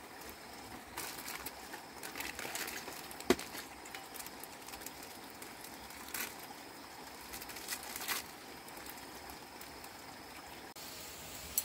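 Crinkling and tearing of small plastic seasoning sachets in short spells, with one sharp crack about three seconds in, over a faint steady hiss.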